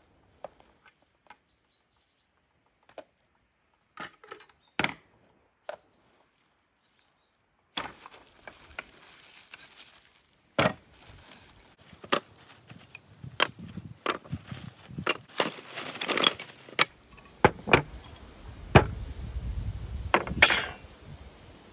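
Salvaged wooden boards knocked together and set down on a wooden table: scattered sharp wood-on-wood knocks, getting busier partway through, with rustling of the plastic bag they come out of.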